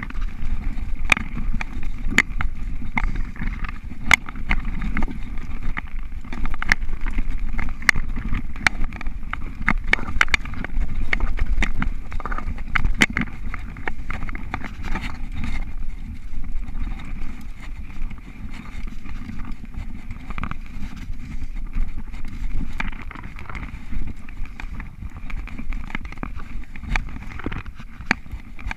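Mountain bike ridden fast on a dirt singletrack: a constant low rumble of tyres on the trail with frequent sharp knocks and rattles from the bike jolting over the ground.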